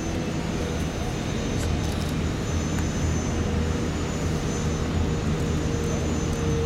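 Airbus A380's jet engines running at low taxi power as the airliner rolls close past: a steady rush and rumble with a steady whining tone.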